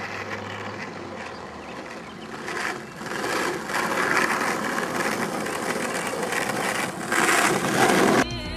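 Skateboard wheels rolling on rough asphalt, growing louder as the board comes up to and passes close by, then cutting off suddenly near the end.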